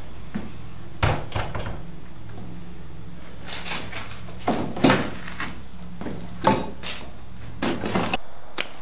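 A wooden door knocked and thudded in a string of irregular bangs, the loudest about five seconds in, over a steady low hum that cuts off near the end.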